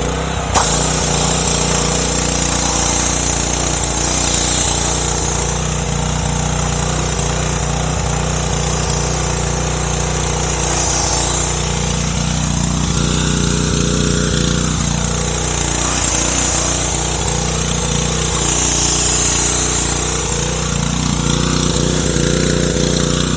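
Pressure washer running steadily while water sprays hard from the undercarriage cleaner's nozzles, a broad hiss that comes on with a click about half a second in and shifts as the cleaner is pushed along under the car.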